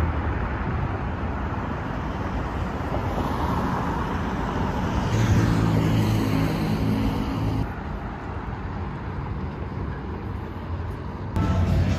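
Road traffic: cars passing with a steady rush of tyres and engines. About five seconds in a deeper engine hum joins for a couple of seconds, and the traffic noise falls quieter just before eight seconds.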